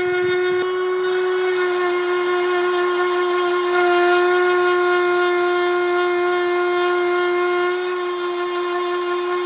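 Electric power sander running steadily against wood, a constant motor whine that holds one pitch.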